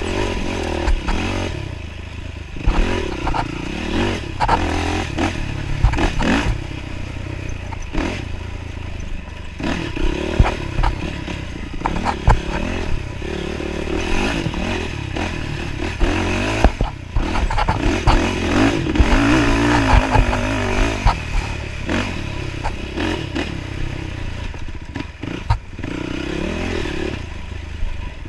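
Off-road dirt bike engine revving up and down as it is ridden hard over rough trail, with frequent knocks and clatter from the bike bouncing over ruts.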